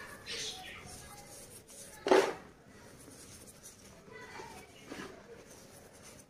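Hands squeezing and crumbling dyed gym chalk in loose powder: soft crunching and rustling, with one sharper, louder crunch about two seconds in.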